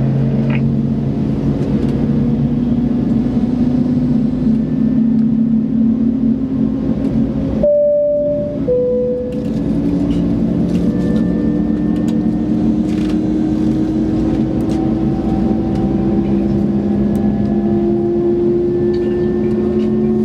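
Cabin hum of an Airbus A220-300's Pratt & Whitney PW1500G geared turbofans, steady at first, then slowly rising in pitch as thrust is added during taxi. About 8 seconds in, a brief two-note falling tone sounds.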